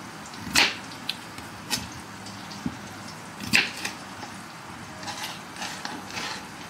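Paring knife cutting red-skinned potatoes into chunks on a cutting board: a few irregular sharp knocks as the blade goes through and meets the board, the loudest about half a second in and about three and a half seconds in, with lighter taps between.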